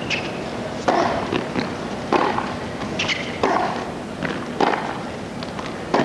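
Tennis rally on a hard court: a string of sharp racquet hits and ball bounces, about one a second.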